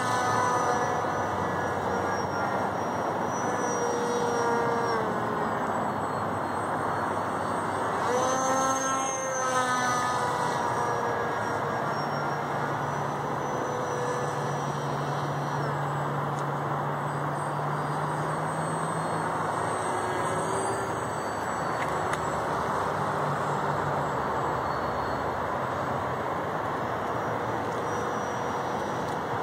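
Electric RC plane's BlueWonder brushless motor and GWS 8060 propeller whining in flight, its pitch sliding down and back up several times, clearest in the first ten seconds and fainter after, over a steady hiss.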